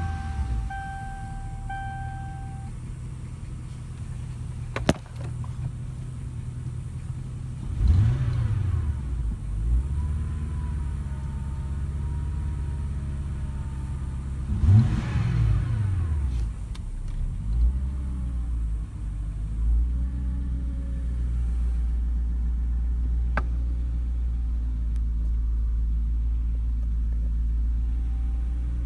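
A 1994 Ford Thunderbird's 4.6-litre V8 idling just after being started, heard from inside the cabin. It is blipped twice, about eight and fifteen seconds in, and each time the pitch rises and falls back to idle. A steady warning tone sounds over the first couple of seconds.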